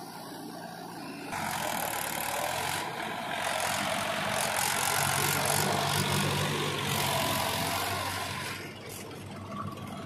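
Mahindra tractor's diesel engine working hard under load, pulling a trolley full of sand through soft ground. It gets much louder about a second in and eases back near the end.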